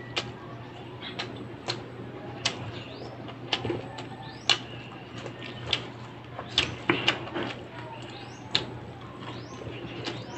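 Close-up eating sounds: wet lip smacks and mouth clicks at irregular intervals while chewing, with a few short rising squeaks, over a steady low hum.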